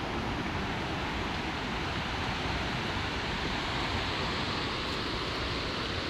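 Steady rush of fast-running mountain water, an even hiss without breaks.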